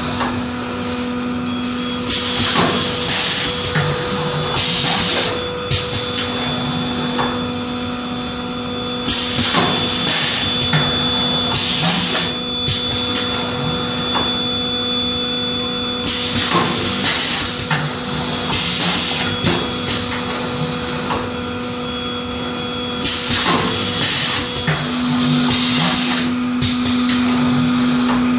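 Pneumatic paper cake-mould forming machine cycling: a burst of compressed-air hiss about a second long every few seconds as its air cylinders exhaust, with knocks of the press, over a steady hum.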